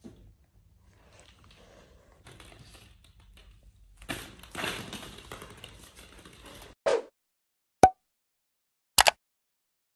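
Soft rustling and handling noise from a fabric playpen's side as a toddler grabs and pulls at its top edge, growing stronger about halfway through. Then a short burst followed by sharp mouse-click sound effects, the second a quick double click, from an animated like-and-subscribe outro.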